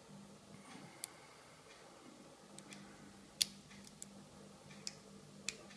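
Faint, scattered metallic clicks of a lock pick and tension tool working the pins inside an Abus Titalium 80TI/40 padlock, about five ticks with the loudest about three and a half seconds in.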